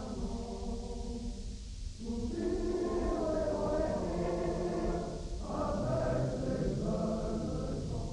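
Background choral music: a choir singing slow, held chords, with the chord changing about two seconds in and again about five seconds in.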